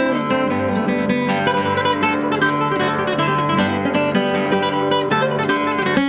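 Background music: acoustic guitar, plucked and strummed, playing a quick run of notes.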